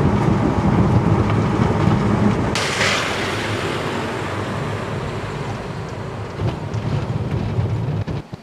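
Van on the road: engine hum and road noise, with wind on the microphone. A short hissing rush comes about two and a half seconds in, and the sound falls away just before the end.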